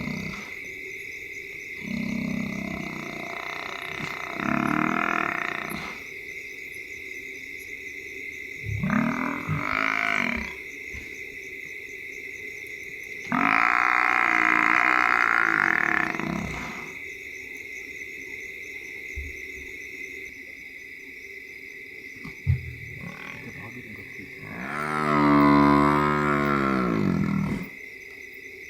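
African buffalo bull bellowing several times while lions hold it down. The loudest and longest bellow, near the end, is its last: the dying bellow of the buffalo as the lions kill it. A steady chirr of night insects runs underneath.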